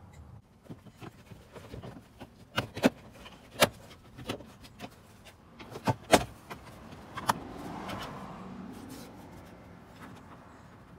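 Plastic interior trim of a second-generation Toyota Tundra's passenger footwell being pried and pulled off: a run of sharp clicks and knocks, two of them much louder, then a soft rubbing and scraping a little after the middle.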